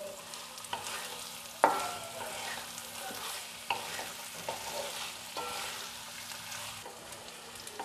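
A spatula stirs and turns stuffed pointed gourds in oil in a nonstick frying pan. The oil sizzles lightly, and the spatula knocks against the pan now and then, most sharply about one and a half seconds in.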